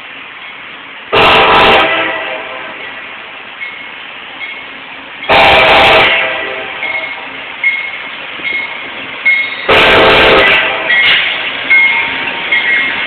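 Amtrak GE P42DC locomotive's air horn sounding three loud blasts, each about a second long and roughly four seconds apart, as the train comes up and passes. The horn is blown constantly as a warning for track maintenance at the switch ahead. Between blasts the passing train's running noise is heard, with clicks and brief squeaks.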